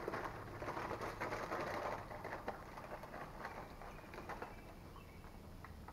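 Paper and aluminium-foil food wrappers crinkling as they are handled, in a dense run of crackles that is loudest for the first two seconds and then softer.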